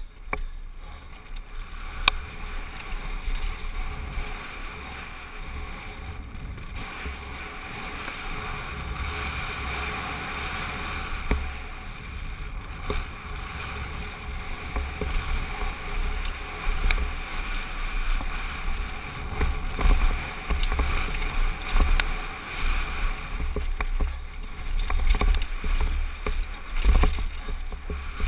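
Wind buffeting a helmet camera's microphone while a downhill mountain bike is ridden fast, with tyre noise and the bike rattling over rough ground and a few sharp clicks. In the middle stretch on asphalt it settles to a smoother, steadier hiss. It turns bumpier and more uneven again toward the end as the bike goes back onto dirt trail.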